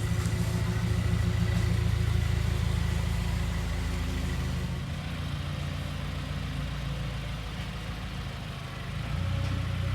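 Subaru WRX's engine running at low speed as the car is moved. It is loudest at first, eases off, then rises again near the end.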